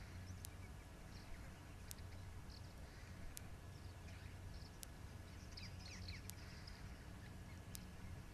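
Faint outdoor ambience: scattered small bird chirps over a steady low hum, with a sharp tick about every second and a half.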